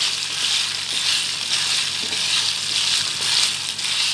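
Mutton pieces sizzling in hot oil in a pan as they are stirred with a wooden spatula: a steady frying hiss that swells and eases with the stirring. The meat's water has cooked off and it is browning in the oil it has released.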